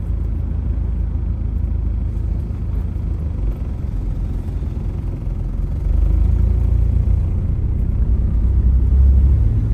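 Low, steady rumble of a car being driven, heard from inside, with engine and road noise. It grows louder about six seconds in.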